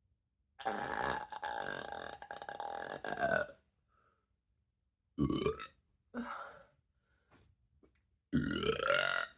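A woman belching up carbonation gas from ginger ale: one long, drawn-out burp starting about half a second in, then three shorter burps.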